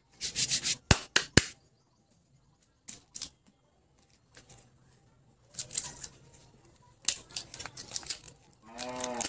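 Plastic candy packaging handled by hands: bursts of crinkling wrapper, two sharp clicks about a second in, and scattered taps, with a brief squeak near the end.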